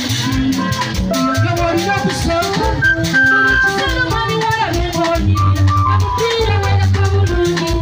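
Live band music played loud through PA speakers: drums, a repeating bass line and a fast rattling percussion part under melody lines.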